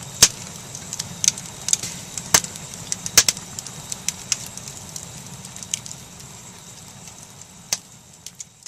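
Wood fire burning, with irregular sharp crackles and pops from the split logs over a steady low rush of flames; the pops thin out near the end.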